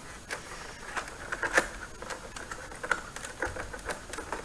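Plastic back cover of an all-in-one PC being pried off with a pry tool: irregular sharp clicks and snaps as the snap-in tabs release, the loudest about a second and a half in. It sounds like things are breaking, but it is only the tabs letting go.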